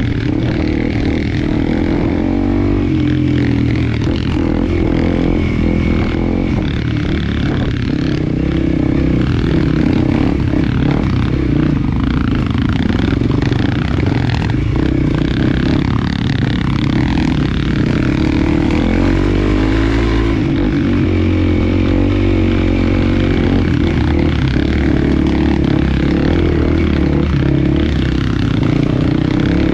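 Small trail motorcycle's engine running continuously under way, its pitch wavering slightly up and down with the throttle.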